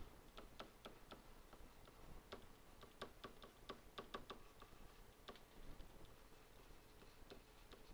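Faint, irregular clicks and taps of a stylus on a pen tablet while handwriting.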